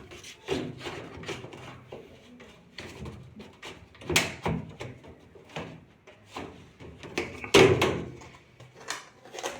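Irregular knocks and clunks of a washing machine's cover and body panels being handled and set in place, with one louder bang about three-quarters of the way through.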